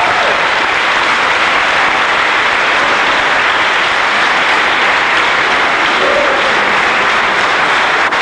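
Audience applauding steadily, dense continuous clapping.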